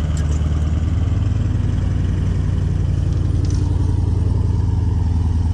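Vehicle engine running at a steady speed, a deep, even drone.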